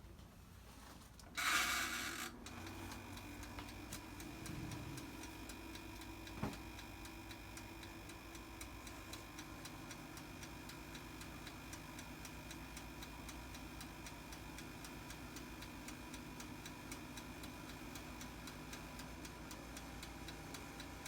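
Black & Decker air fryer toaster oven switched on: a brief rush of noise about a second and a half in, then its fan running with a steady hum while even ticking, typical of the oven's dial timer, goes on alongside. The fan makes some noise, but it's not too noisy.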